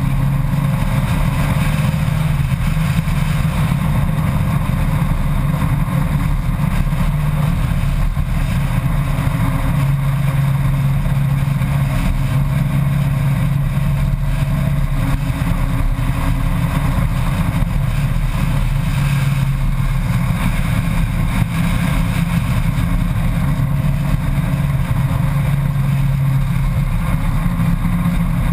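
Honda Gold Wing motorcycle cruising at road speed: a steady low engine drone under an even rush of wind noise.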